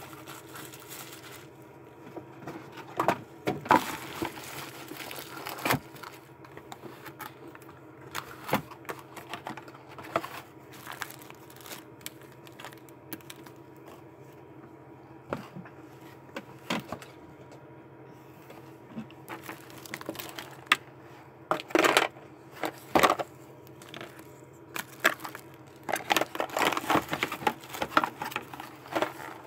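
Plastic containers and art supplies being handled and moved while tidying up: scattered knocks and clicks, with bursts of rustling and scraping about three-quarters through and near the end, over a faint steady hum.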